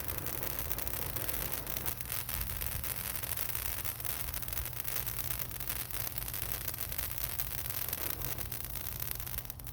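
Handheld stick firework burning with a steady hiss and fine crackle, cutting off near the end as it burns out.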